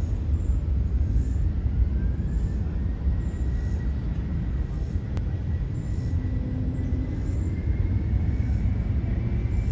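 Boeing 717-200's two rear-mounted Rolls-Royce BR715 turbofans spooling up for the takeoff roll: a steady low rumble heard from a distance, with a faint whine that rises in pitch over the first few seconds and then holds nearly steady.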